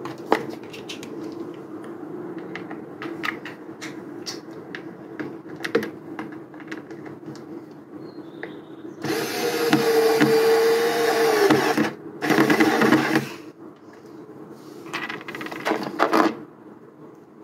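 Small clicks from handling screws and window fittings, then a cordless drill-driver running in three short runs, about nine, twelve and fifteen seconds in, driving self-tapping screws to fix a mosquito-net holder to a plastic window frame.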